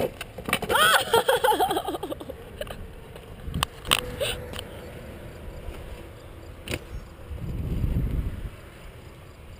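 Board wheels rolling over rough concrete, a low rumble that swells as a rider passes close near the end. Earlier, a loud wavering pitched squeal or cry lasts about a second and a half, followed by a few sharp clacks.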